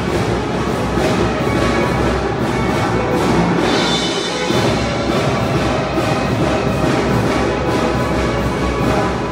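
Tamborazo band music: brass instruments playing over a steady bass drum beat.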